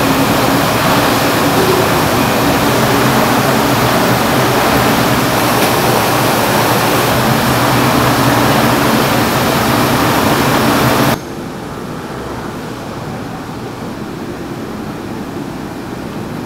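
Steady, loud machine hum and hiss of commercial kitchen equipment. It drops abruptly to a quieter, steady level about eleven seconds in.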